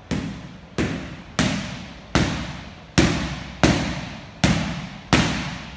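Boxing gloves striking padded focus mitts in a steady string of punches: about eight sharp smacks, a little under a second apart, each trailing off in room echo.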